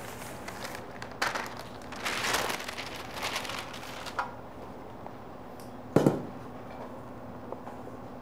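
Rubber spatula scraping batter in a mixing bowl in a few short strokes, then one sharp knock about six seconds in, over a steady low hum.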